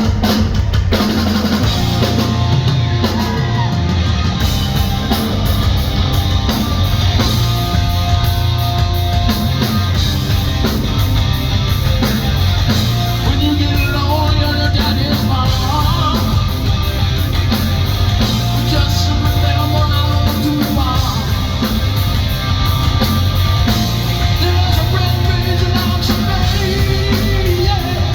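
Live rock band playing loudly, with a voice singing or yelling over the music at times.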